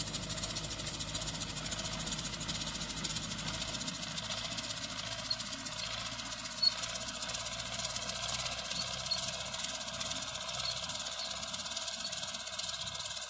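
Zetor 5718 tractor's diesel engine running steadily at a distance as it pulls a fertilizer spreader across a field, its low rumble thinning after a few seconds as it moves away. A brief tap about halfway through.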